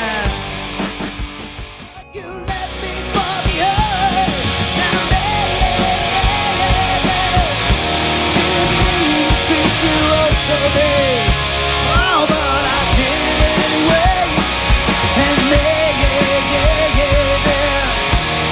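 Grunge-style rock band music with guitar and drums. It dips briefly about two seconds in, as at a change between songs of a medley, then picks up again with a melodic lead line over the band.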